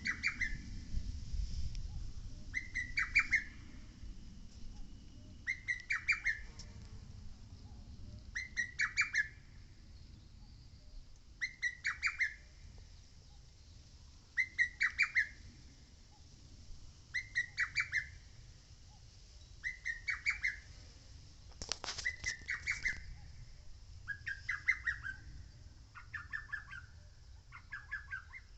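Lesser cuckoo singing its quick staccato phrase over and over, about once every two to three seconds, the phrases coming closer together near the end. A brief rustling noise cuts across the song about three-quarters of the way through.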